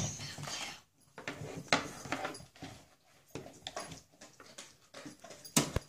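Plastic toy packaging crinkling and rustling as it is handled, in short irregular crackles, with a sharp click near the end.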